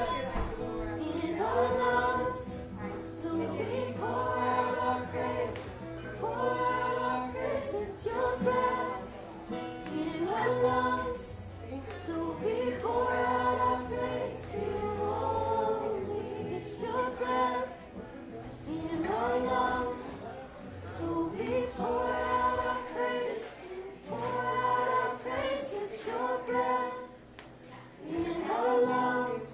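Young women's voices singing a worship song together to a strummed acoustic guitar, in phrases of about two seconds each.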